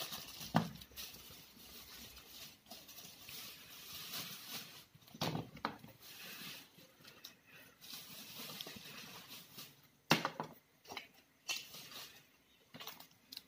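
Faint, scattered clicks, taps and rustles of small toy items being handled and packed into a carry bag, with a run of sharper clicks near the end.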